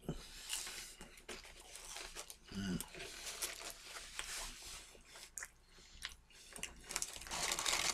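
Close-up chewing of a mouthful of waffle fries: irregular soft crunches and wet mouth sounds, with a brief low hum of the voice about two and a half seconds in.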